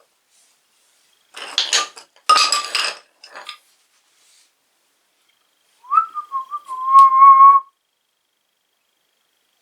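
A few clattering, clinking knocks, then a person whistles a short note that wobbles in pitch and then holds steady for about a second and a half.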